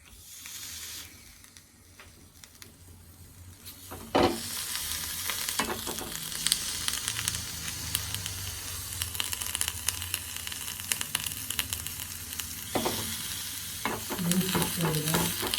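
Fresh doddapatre (Indian borage) leaves sizzling and crackling on a hot pan as they heat and give off their juice. The sound is faint at first; after a sharp knock about four seconds in, a steady crackling sizzle follows.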